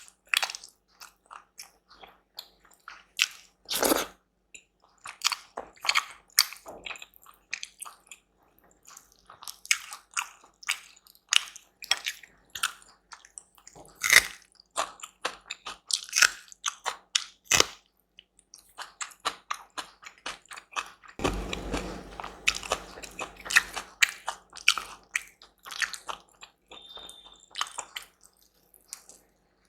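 Close-miked eating with no talking: repeated biting and chewing made of many short, sharp mouth clicks. A longer, fuller stretch of noise comes about three quarters of the way through.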